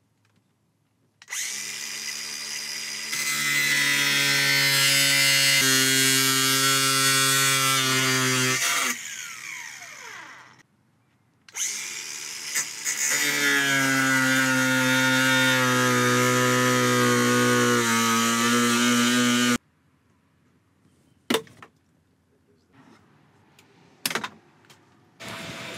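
Cordless angle grinder with a cutting disc running in two long cuts of about eight seconds each through the dash's gauge retainer, its pitch dropping in steps as it cuts and winding down after the first cut. A few sharp knocks follow near the end.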